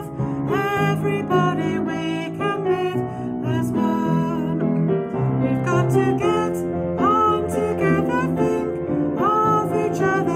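Piano played with chords and a melody, with a woman singing along over it.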